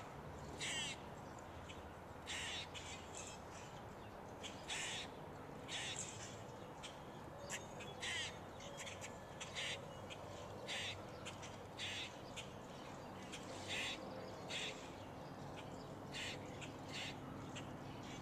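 Short, harsh, raspy animal calls repeating irregularly about once a second, high-pitched, over a faint steady hiss.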